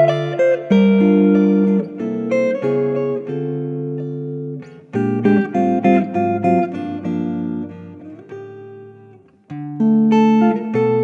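Background music: a solo acoustic guitar picking notes and chords. The playing dies away to a brief near-pause about nine seconds in, then a new phrase starts with a strong chord.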